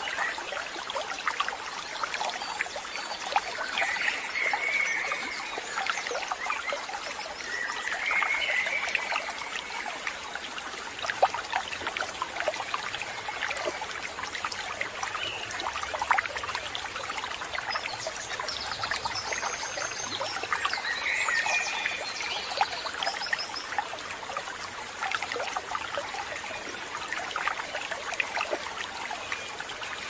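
Steady trickling, crackling background of running water, with a few brief bird calls about 4, 8 and 21 seconds in.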